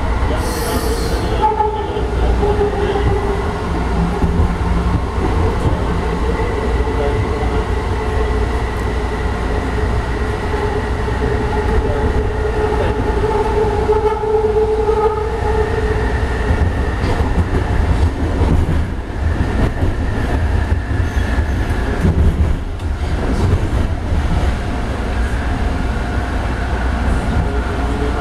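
JFK AirTrain car running along its guideway, heard from inside: a steady low rumble with several steady whining tones from the drive, the whine shifting higher about halfway through. A brief hiss comes about a second in.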